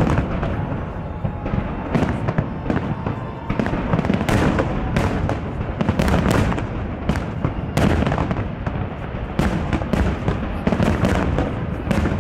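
Large aerial fireworks shells bursting in quick succession: a string of sharp bangs over a continuous low rumble, the bangs coming faster in the second half.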